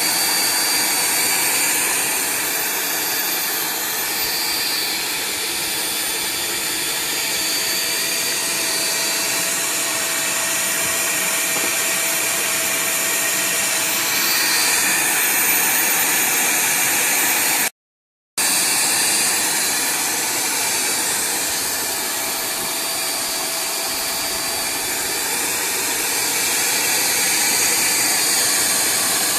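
AVC 212 vacuum cleaner running steadily, a loud rushing motor noise with a high whine. The sound drops out completely for about half a second midway, then carries on unchanged.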